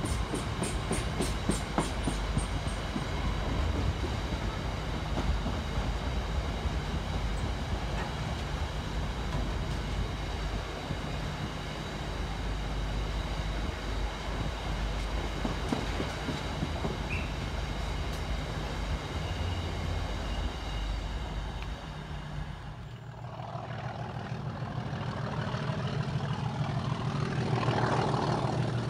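Freight wagons rolling past, a steady rumble of steel wheels on rail with rapid clicking over the rail joints at the start. After a cut near the end, a diesel locomotive's engine is heard working hard, growing louder as it approaches.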